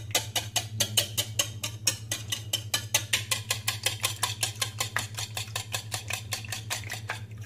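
Metal wire whisk beating raw eggs in a ceramic bowl, the wires clicking rapidly against the bowl about seven times a second, over a steady low hum.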